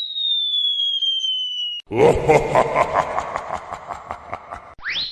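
Electronic transition sound effects: a long, smoothly falling whistle-like tone, then about three seconds of noisy, rapidly pulsing sound, ending with a quick rising whistle.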